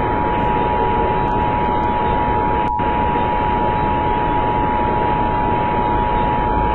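The two-tone Emergency Alert System attention signal sounding steadily, heard over loud static hiss.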